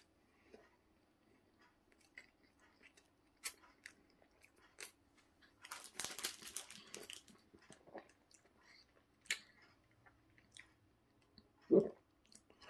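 Close-up chewing of a vegan steak-style pastry slice: scattered soft crunches and mouth clicks, with a denser stretch of crunching about six seconds in. A brief low vocal sound comes near the end.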